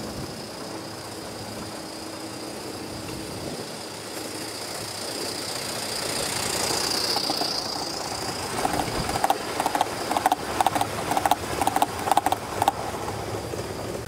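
Gauge 1 model train rolling past on the track. It grows louder as it comes near, then gives a rapid clatter of wheel clicks on the rails for about four seconds as the coaches go by.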